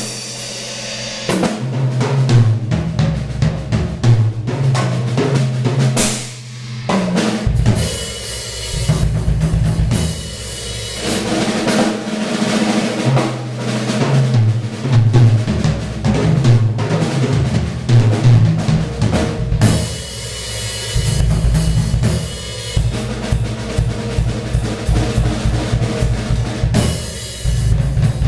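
Acoustic drum kit played in an improvised solo: fast, dense strokes on snare, toms and bass drum, with stretches of cymbal wash coming in and dropping out.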